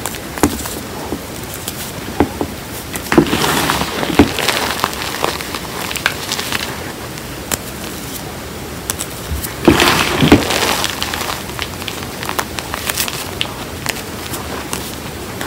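Hands squeezing and crumbling reformed gym chalk mixed with cornstarch, giving a steady crackle of crunching, squeaking powder. There are two louder bouts of crunching, about three seconds in and again about ten seconds in.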